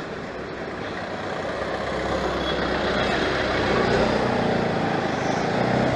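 Motorcycle riding along a road: engine running with rushing air and road noise, growing steadily louder.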